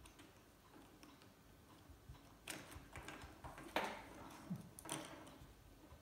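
Light clicks and knocks of a plastic gas lighter's housing and metal parts being handled and fitted together, a few separate taps with the loudest a little before four seconds in.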